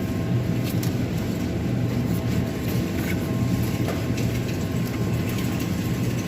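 Steady supermarket background noise: a low hum and rumble with a faint, steady high whine and scattered light clicks and rattles.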